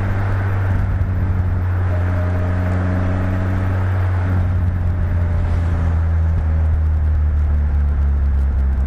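Westfield SEiW kit car running at fairly steady revs, with a low, even engine note that shifts slightly in pitch about four seconds in and again near six seconds.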